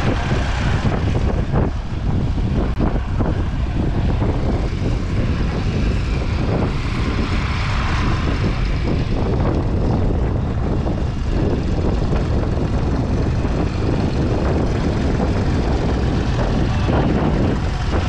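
Vintage Ford Major tractor engine running steadily, a continuous low rumble.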